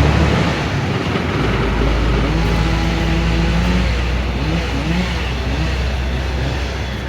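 Background motor-vehicle engine noise: a steady low rumble with an engine note that holds for about a second and then wavers up and down.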